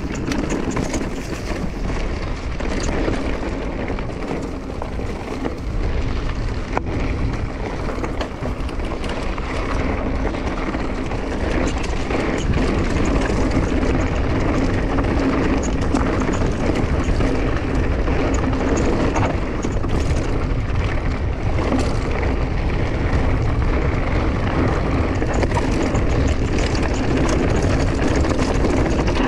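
Mountain bike riding a dirt trail: tyre noise and the bike rattling over rough ground, with wind buffeting the microphone. It gets louder about a third of the way in.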